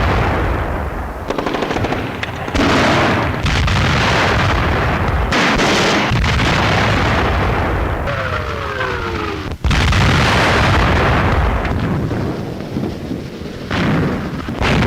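Battle sound of a wartime newsreel: heavy gunfire and explosions in loud, dense bursts. About eight seconds in a falling whistle runs down for a second or so, cut off by a sharp break and another loud blast.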